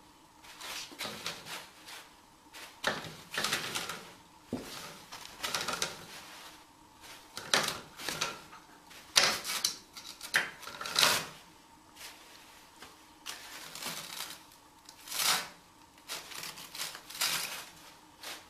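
Toilet paper rustling in quick, irregular bursts as a cat pulls it down off the roll and paws at the loose pile.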